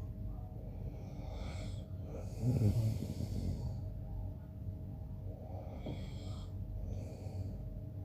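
A man snoring in his sleep: one loud, low snore about two and a half seconds in, with softer breathing between snores.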